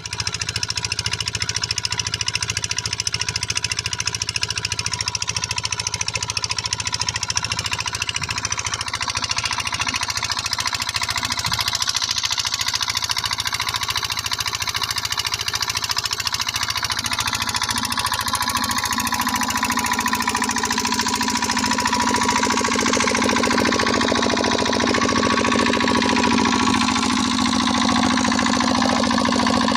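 Diesel pumpset engine running steadily with a fast, even diesel knock. Its tone grows slightly fuller about two-thirds of the way through.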